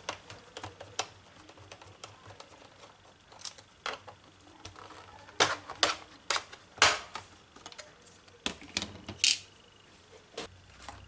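Scattered small plastic clicks and taps as the hard disk and RAM compartment door on the underside of an Acer Aspire V3 laptop is worked loose, with a few sharper clicks in the middle and second half.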